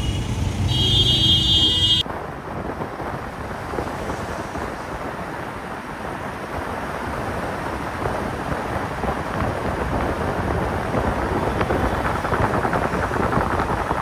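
About two seconds of roadside traffic with a high steady tone, then a cut to a car driving with steady wind rushing over the microphone and road noise.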